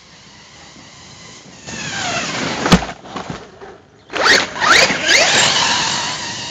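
Hobao Hyper ST Pro RC truck's brushless electric motor and drivetrain whining under hard driving. The pitch falls about two seconds in and a sharp knock comes near the middle, then several quick rising whines follow as the truck accelerates again, fading near the end.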